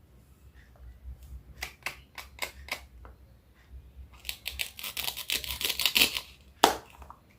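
Knife cutting produce on a cutting board: about six separate chops, then a quick burst of crunchy slicing, then one loud chop near the end.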